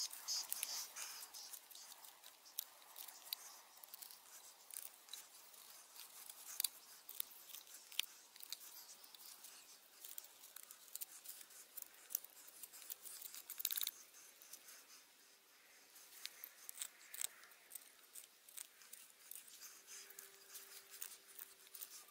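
Knife cutting and scraping wood while carving a wooden spoon from a branch: quiet, irregular short shaving cuts and scrapes.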